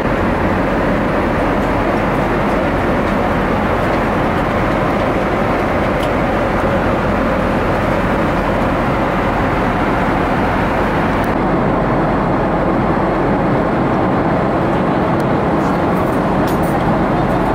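Steady loud roar of a Boeing 777-200's Pratt & Whitney jet engines and airflow heard inside the passenger cabin. About eleven seconds in, the high hiss drops away abruptly while the low roar carries on.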